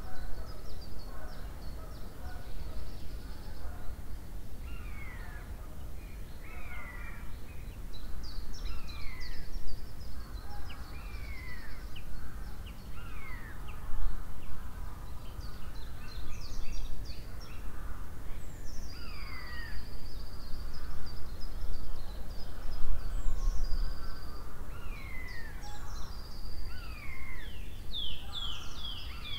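Woodland birdsong: several birds calling with repeated short falling whistled notes, a few held high notes in the second half and a quick run of falling notes near the end, over a steady low rumble.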